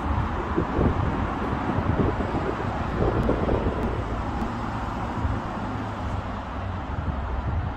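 Street ambience: steady road traffic noise with a low rumble.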